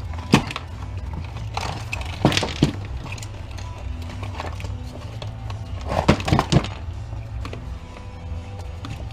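Background music with a few sharp clanks and knocks of tools and metal parts being handled while a bolt and nut are worked loose, the loudest cluster about six seconds in.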